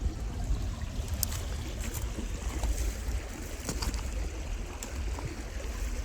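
Creek water running in a steady rush, with a low rumble on the microphone and a few faint clicks.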